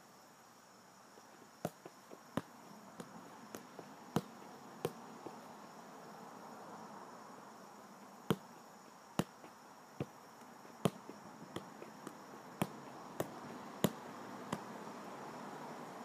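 Soccer ball being juggled: sharp taps of the ball off foot and thigh, one every half second to a second, pausing for a few seconds in the middle. A steady high insect chorus runs behind.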